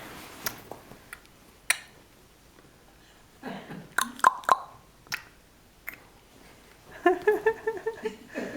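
A small child making mouth noises: scattered clicks, pops and smacks, then, in the last second and a half, a quick run of short, high-pitched babbled syllables.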